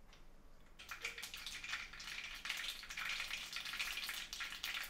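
Mustard and fenugreek seeds spluttering and crackling in hot wood-pressed oil in an aluminium kadai, the tempering stage of a gravy. The crackle starts suddenly about a second in and grows louder, a dense run of sharp pops.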